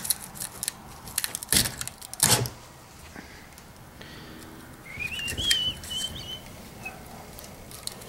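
Pliers clicking and copper wire scraping against the steel core as the last secondary windings of a microwave oven transformer are wiggled and pulled out. A few sharp clicks come in the first three seconds, and a brief high, wavering squeak comes a little past the middle.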